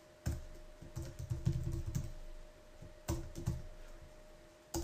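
Computer keyboard being typed on: irregular keystrokes in small clusters with short pauses between.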